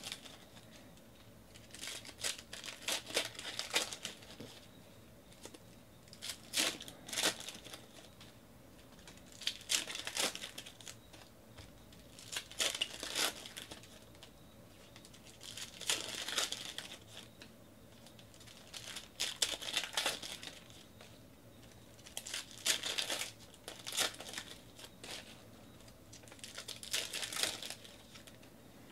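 Foil wrappers of 2019 Panini Donruss Optic baseball card packs being torn open and crinkled by hand, a short burst of crinkling about every three seconds as pack after pack is opened.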